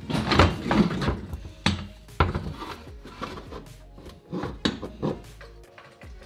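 Volvo 740 driveshaft being manoeuvred up into place and fitted to the gearbox output flange: a string of irregular metal clunks and knocks, with scraping and rubbing between them.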